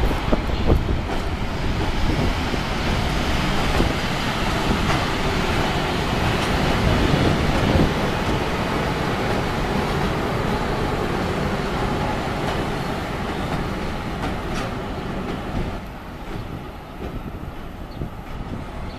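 ChS7 two-section Czechoslovak DC electric locomotive passing close by, with steady wheel-on-rail noise and scattered clicks, getting quieter near the end as it moves away.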